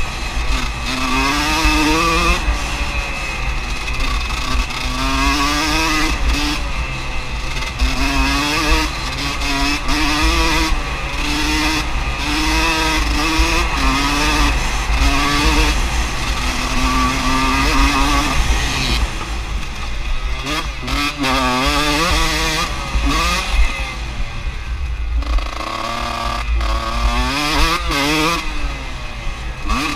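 Enduro dirt bike engine heard from the bike itself, revving up and falling back again and again every second or two as the rider accelerates and shifts along the track. Heavy wind rumble on the microphone underneath.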